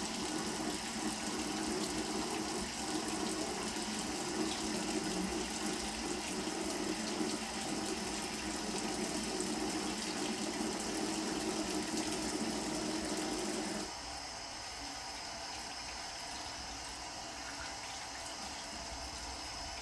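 A bathroom sink faucet runs steadily onto hands being washed beneath it. The water sound drops abruptly quieter about fourteen seconds in.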